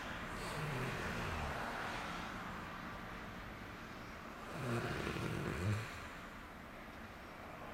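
A sleeper snoring: noisy breathing with two louder snores, one about a second in and a stronger one around five seconds in. This is snoring in sleep without a Nastent nasal airway stent, from someone with sleep apnea.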